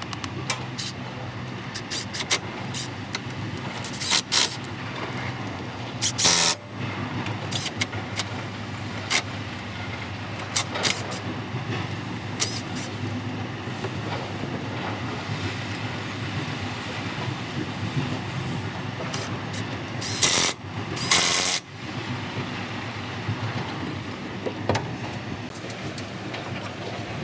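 An engine running steadily with a low hum, broken by a few short, loud bursts of hiss.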